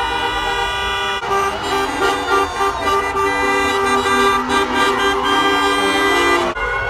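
Many car horns honking at once, long overlapping blasts of different pitches, from a drive-by graduation parade of cars. The mix of horns changes abruptly about a second in.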